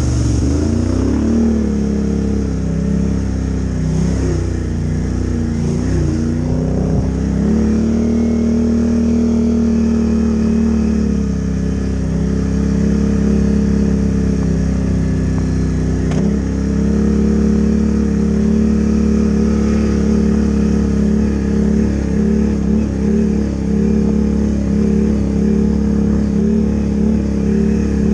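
Can-Am ATV's V-twin engine running under way, its pitch rising and falling with the throttle several times. Water splashes as it goes through a puddle right at the start.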